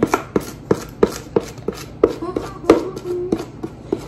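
A kitchen utensil tapping repeatedly against kitchenware while brownie batter is being handled, with sharp taps about three times a second.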